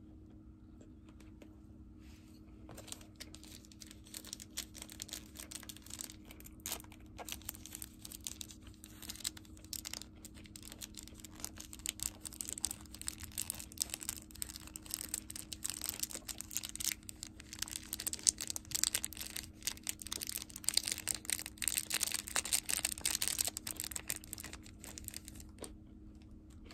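A thin plastic packet crinkling and being torn open, a dense run of small crackles that goes on for about twenty seconds while pickled red ginger is squeezed out of it.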